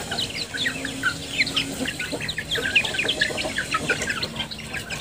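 A flock of young Thai native chickens cheeping and clucking, with many short, high calls overlapping without a break.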